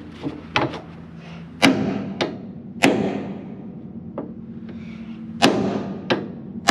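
A series of sharp knocks and clanks, each with a short ring, the three loudest spaced about a second or more apart, over a steady low hum.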